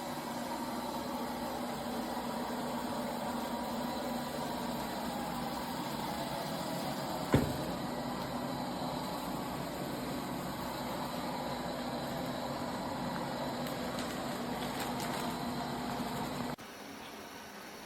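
Robot vacuum cleaner running with a steady motor hum, a single sharp bump about seven seconds in, then cutting off abruptly near the end.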